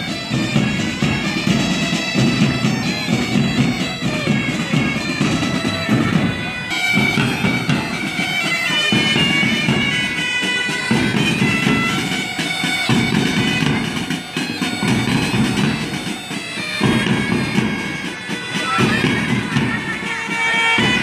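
Pipe band bagpipes playing a marching tune: several pipes carry the melody together over their steady drones.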